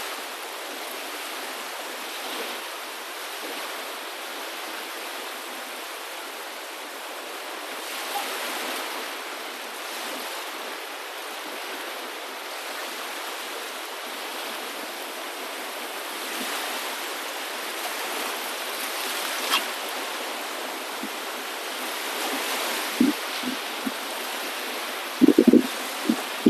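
Waves washing in: a steady rush of water that swells and eases every few seconds. A few short knocks come near the end.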